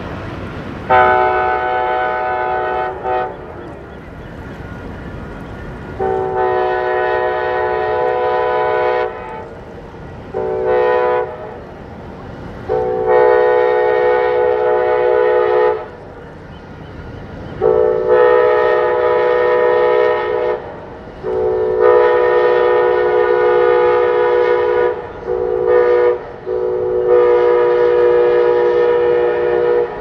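Passenger locomotive's multi-chime air horn blowing the grade-crossing signal, long, long, short, long, and then the same pattern again, over a low rumble of the train.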